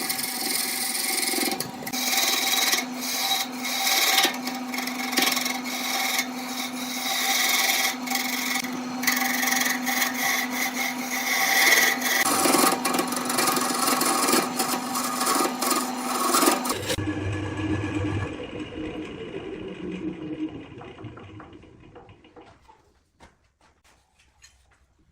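Wood lathe running with a turning tool scraping the spinning wood, over a steady motor hum. About two-thirds of the way through the cutting stops suddenly, and a lower hum fades away to near quiet.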